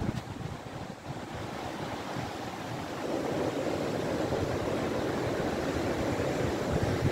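Ocean surf breaking and washing up a wide sandy beach, a steady rushing hiss that swells louder about three seconds in as a wave comes in.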